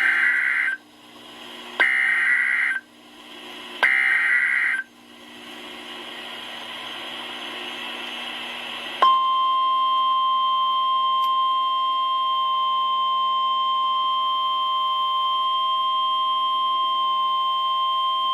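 NOAA Weather Radio Emergency Alert System broadcast: three short data bursts of the SAME header, about two seconds apart, then a few seconds of hiss. About nine seconds in comes the steady, single-pitched warning alarm tone that signals a warning is about to be read, here a severe thunderstorm warning.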